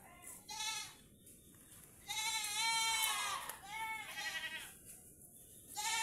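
Goats bleating: high-pitched, wavering bleats, with two short calls at the start, a long one about two seconds in and a shorter one around four seconds.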